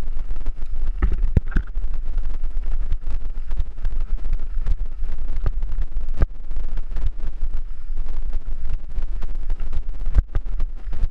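Mountain bike descending a loose rocky gravel track: tyres crunching over stones, and the bike rattling with many sharp knocks, a loud one about six seconds in and another near the end. Wind buffets the helmet-mounted camera microphone as a steady low rumble.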